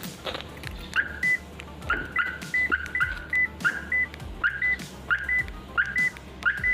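Car alarm siren in a Toyota Calya sounding a repeating chirp pattern: a quick rising chirp followed by a short high beep, over and over, roughly three times every two seconds, starting about a second in.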